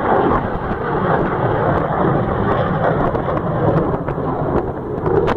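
Jet aircraft engine noise during a low pass: a loud, steady rumble.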